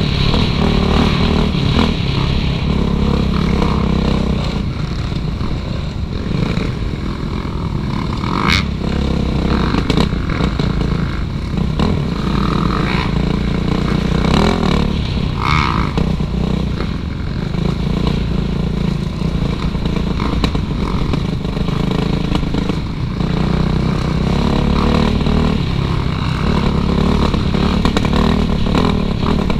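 Suzuki RM-Z450's four-stroke single-cylinder engine, heard from the rider, rising and falling as the throttle is opened and closed on a trail ride. Two sharp clacks come through, about eight and fifteen seconds in.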